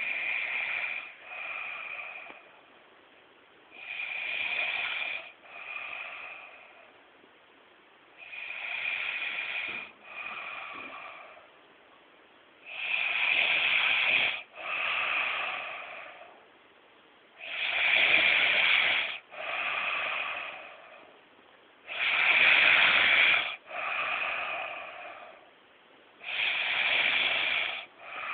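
A man snoring heavily: seven snores about every four and a half seconds, each a long loud snore followed at once by a shorter, fainter one, the later snores louder than the first.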